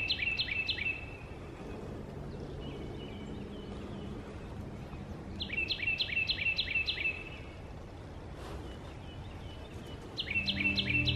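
A songbird singing a quick run of six or seven clear, repeated notes, three times, each run lasting about a second and a half and coming roughly every five seconds, over a faint steady outdoor rumble. Soft music comes in near the end.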